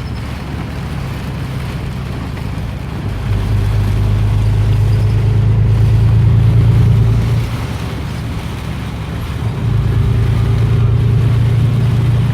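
Motor vehicle engine drone, low and steady, swelling up twice for a few seconds each as vehicles pass or rev.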